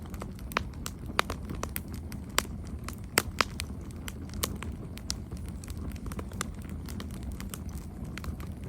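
Campfire crackling: a steady low rumble of burning with irregular sharp pops and snaps from the burning wood, a few of them louder.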